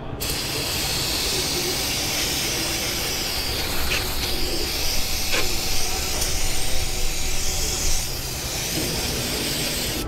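Aerosol cleaner spray can hissing in one long continuous spray, washing spilled oil off the engine underside around a new oil filter.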